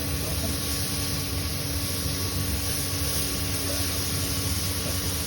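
Chicken pieces shallow-frying in hot olive oil, a steady sizzle over a low, even hum.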